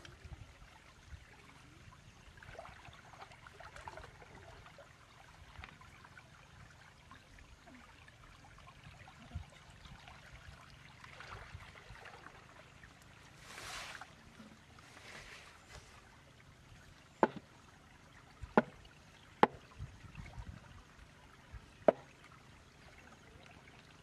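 Faint trickling and splashing of shallow muddy water as hands work in a ditch, with two brief louder splashes just past the middle. Then four sharp knocks, the loudest sounds, from a hoe striking the muddy bank.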